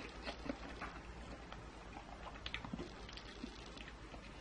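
A man chewing a mouthful of food: faint, scattered small mouth clicks and smacks.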